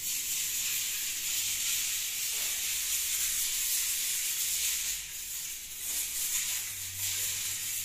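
A plastic trowel rubbing over fresh micro-grain decorative plaster (Feidal Lava) on a wall: a steady hissing scrape with a short lull about five to six seconds in.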